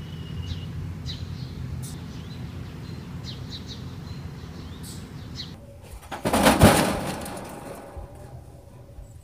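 Small birds chirping over a steady low hum, then a brief loud burst of noise about six seconds in.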